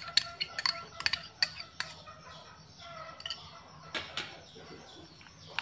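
Domestic chickens clucking in the background, with a run of short sharp clicks and taps in the first two seconds and a couple more about four seconds in.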